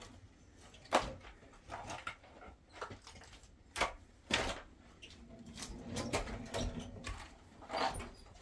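Irregular knocks and clatter of things being handled, with a sharp knock about a second in, two near the middle and one near the end.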